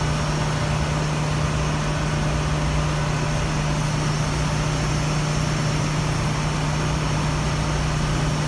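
Ship's engine-room machinery running steadily: a constant low hum under a loud, even wash of machinery noise.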